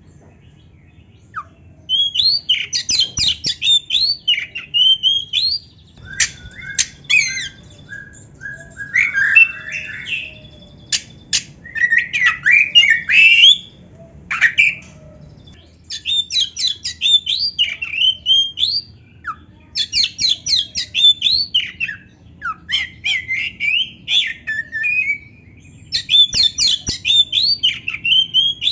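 Black-breasted Oriental magpie-robin (kacer) singing loud, fast phrases of rapid, varied notes, some rising and falling, broken by short pauses. The song starts about two seconds in.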